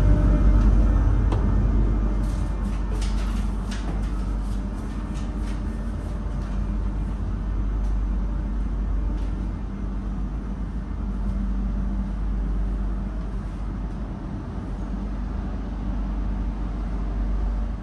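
Steady low hum and rumble inside a Stadler GTW electric railcar of the Montserrat Rack Railway. It is loudest at first beside the car's power-module corridor, then settles quieter in the passenger compartment. A few light clicks come a couple of seconds in.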